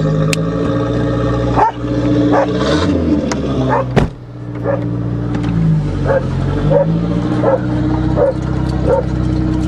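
The engine of a turbo Aries wagon running while it tows a loaded trailer. Its pitch dips and rises a couple of times. A short, sharp sound repeats about every three quarters of a second over the engine.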